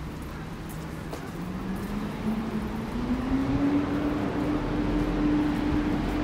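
Street traffic with a motor vehicle pulling away: its engine note rises over about two seconds, then holds steady as it gets louder.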